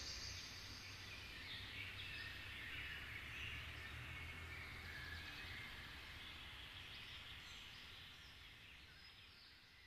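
Faint outdoor ambience with birds chirping over a low rumble, fading away toward the end.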